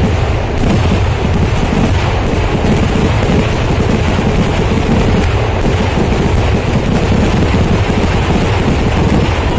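Kerala temple fireworks (vedikettu): a dense, unbroken barrage of explosions and crackling that merges into one loud, steady, thunder-like rumble.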